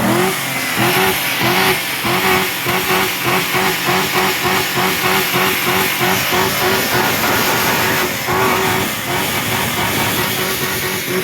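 Chevy engine running at raised revs after a rev-up, with an even pulsing of about three beats a second.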